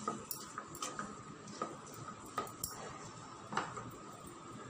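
Wooden spatula stirring chopped spring onions in a nonstick frying pan, giving light, irregular taps and scrapes against the pan.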